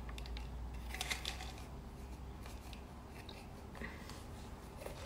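Faint handling noises of a small plastic supplement bottle: a few light clicks and rustles, scattered and irregular, over a low steady hum.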